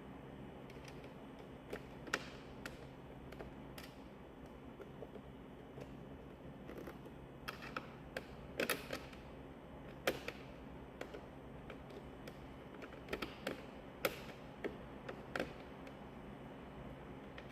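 Scattered light clicks and taps of small screws and a screwdriver against the plastic instrument-cluster housing, as the bezel's retaining screws are fitted and driven in.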